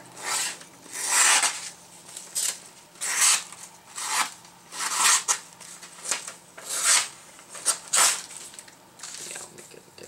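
A small Swiss Army knife blade slicing into a sheet of paper, about ten quick hissy strokes roughly a second apart. This is a sharpness test on a freshly sharpened edge that may still carry a slight burr.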